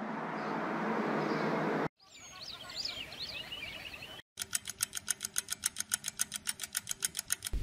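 A steady, low city hum cuts to birds chirping, then to the fast, even ticking of a mechanical watch movement, about seven ticks a second, from about four seconds in.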